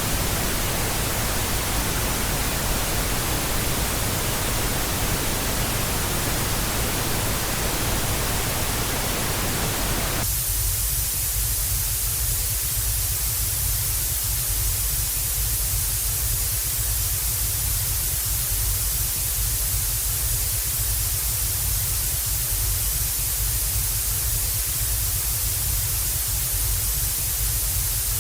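TV static sound effect: a steady, even hiss of noise. About ten seconds in it switches abruptly to a thinner, brighter hiss over a low rumble, with the middle of the sound gone.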